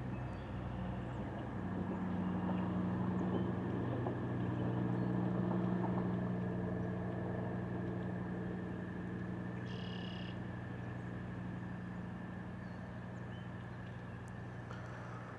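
A motor drone at a steady pitch, swelling to its loudest about six seconds in and then slowly fading, as an engine passes at a distance. A short bird chirp about ten seconds in.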